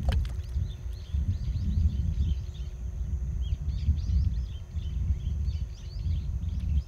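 A fishing rig and sinker plop into the water right at the start. Small birds then chirp and twitter repeatedly over a low, uneven rumble.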